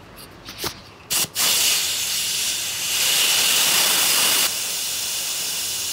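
Compressed air hissing out of a small 220 V air compressor's tank through its outlet quick-coupler, the valve pushed open with a screwdriver to bleed the tank down from about 6 bar. A couple of metal clicks come first, then the hiss starts about a second in, grows louder midway and eases slightly later on.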